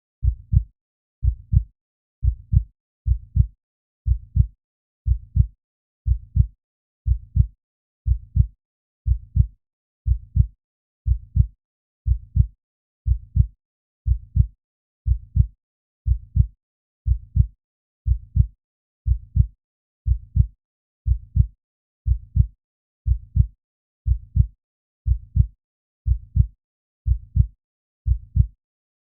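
Heartbeat sound effect: a steady lub-dub, each beat a pair of low, dull thumps close together, about one beat a second.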